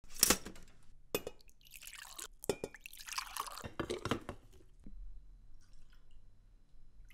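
A toaster's lever pushed down with a sharp click, then a few knocks and liquid being poured.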